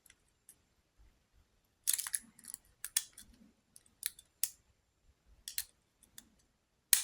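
Steel lock pick (a jam hook) working inside a lock's keyway: short metallic scrapes and sharp clicks at irregular intervals as the pick is pushed against the pins under tension.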